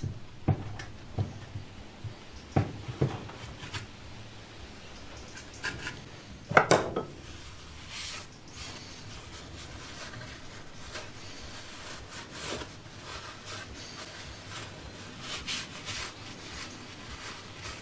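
Cloth rubbing and wiping over the cylinder fins and valve breather cover of a 1980 Briggs & Stratton 3.5 hp engine. A few light knocks and one louder clunk of metal parts handled on the wooden bench come in the first seven seconds.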